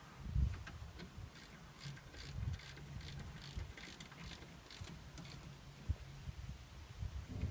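Irregular light metallic clicks over low knocks: hand tools and metal parts being handled during work on a Unimog 404's rear brakes.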